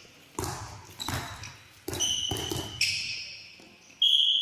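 Handballs striking with echoing thuds in a large sports hall, several times. Sneaker squeaks on the court floor about two seconds in and again near the end, the last one the loudest sound.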